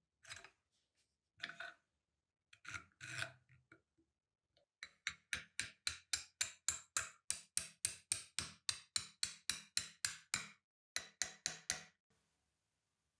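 Turned wooden handle being twisted back and forth onto the metal handle rod of an antique cast iron sad iron, rasping with each stroke: a few slow strokes, then a quick, even run of about four strokes a second that stops a second before the end.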